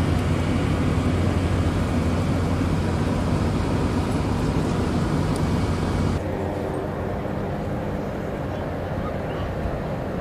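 Steady low machinery hum with a few held tones. About six seconds in it cuts off suddenly to a quieter, steadier hum.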